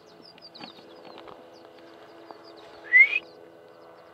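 A short, loud rising whistle about three seconds in, over a run of faint, high, quick chirps.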